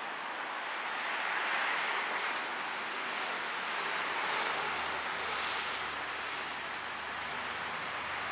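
Street traffic: a rushing noise that swells and fades twice as vehicles pass, with a low engine hum in the middle.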